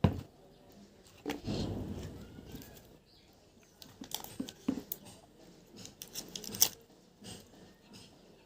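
Eating sounds from a toasted bread and mayonnaise sandwich: a knock at the start, a longer rustling, chewing stretch, then a run of small mouth clicks.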